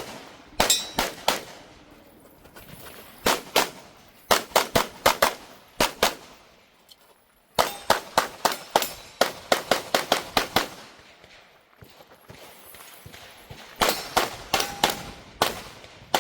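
Grayguns-tuned Sig P320 pistol fired in quick strings of shots, mostly fast pairs, with pauses of one to three seconds between strings.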